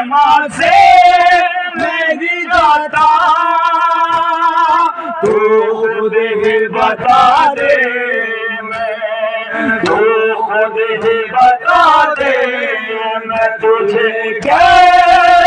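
A man chanting a noha, a Shia mourning lament, as solo voice with no instruments, in long drawn-out sung lines into a microphone.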